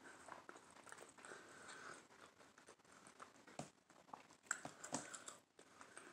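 Faint chewing of a mouthful of avocado toast with fried egg: scattered soft clicks and mouth smacks, the strongest around four and a half to five seconds in.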